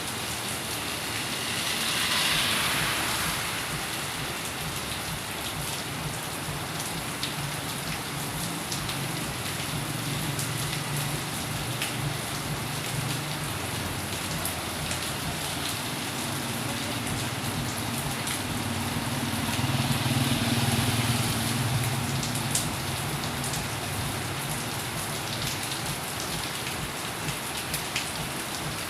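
Steady rain falling, with individual drops ticking sharply over an even hiss. A brief louder gust of rain about two seconds in, and a low rumble builds through the middle, loudest about two-thirds of the way through.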